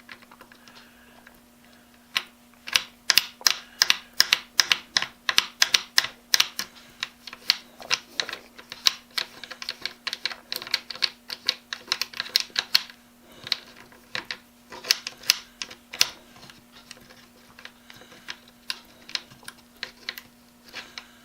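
Rapid, irregular metallic clicking, several clicks a second, as a nut is run down a threaded bolt on a cam-lock clamp. The clicks thin out after about sixteen seconds. A faint steady hum runs underneath.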